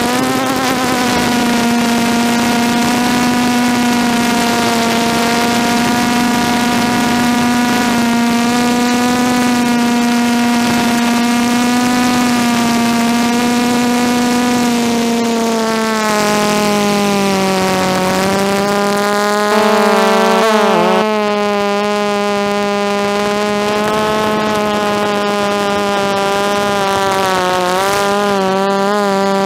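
Brushless motors and propellers of a DJI F330 quadcopter whining in flight, heard on the aircraft's own camera. It is a steady buzzing whine that drops in pitch about halfway through, then wobbles up and down with throttle changes, briefly louder about two-thirds of the way in and again near the end.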